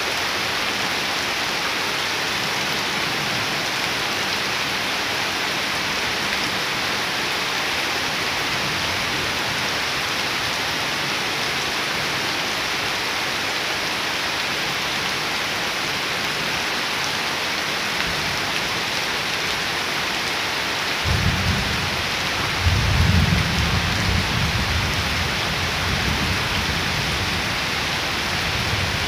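Heavy rain falling steadily on standing water and leaves. About two-thirds of the way in, a low rumble of thunder comes in and fades over several seconds.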